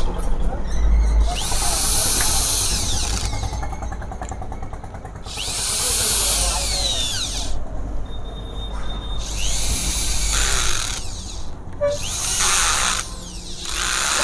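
Electric power drill with a socket extension running in about five short bursts, its motor whine rising and falling with each trigger pull as it runs down the clutch centre nut on a Honda CB Unicorn 160 engine.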